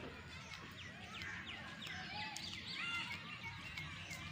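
Several birds singing and calling at once: many short chirps and whistles overlapping, over a low steady background hum.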